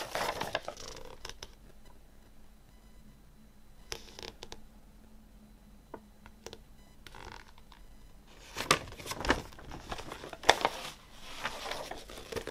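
Fold-out paper lyric insert of a CD rustling and crinkling as it is unfolded and handled. The rustling comes in bursts: once at the start, then a quieter stretch with a few light clicks, then louder rustling again from about two-thirds of the way in.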